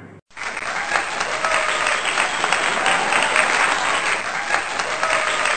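Crowd applauding: dense, steady clapping that starts suddenly a moment in, with faint voices in the crowd.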